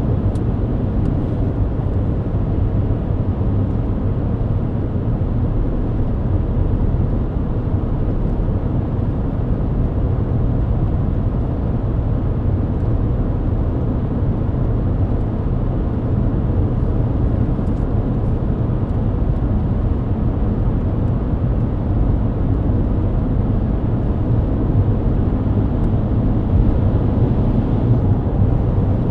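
Steady cabin drone of a Mercedes-Benz W124 cruising at highway speed: engine and tyre noise on a wet road. It is low-pitched and constant, with no gear changes or other events.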